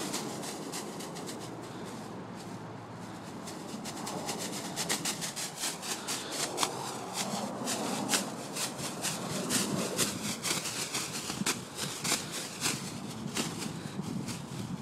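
Plastic shopping bag on the end of a stick crinkling and rustling as it is rubbed over a foal's back, in quick irregular crackles that start a few seconds in and run on until near the end.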